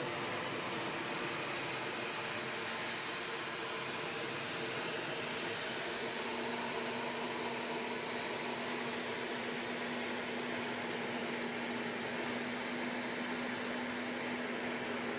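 Steady aircraft engine noise: an even hiss under a low hum, with a faint steady tone coming in about six seconds in.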